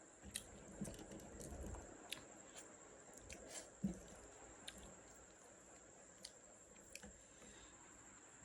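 Quiet chewing and mouth sounds of someone eating fish curry and rice, with scattered small clicks and a short thump about four seconds in.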